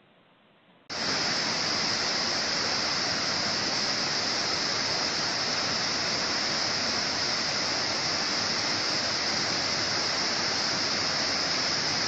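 A mountain stream in flood: swollen brown water rushing over rocks with a loud, steady rushing noise, swollen after a full day of heavy rain. The sound starts abruptly about a second in.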